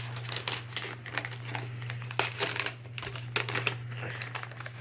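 Plastic packaging crinkling and crackling as a sealed bag is handled and pulled at, trying to open it.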